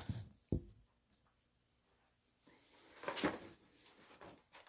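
A single soft thump about half a second in, then a large folded paper poster rustling and crinkling as it is picked up and folded by hand.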